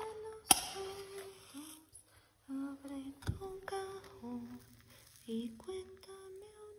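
Humming of a slow melody in long held notes that step up and down. About half a second in, a single sharp strike with a short hiss, a match being struck.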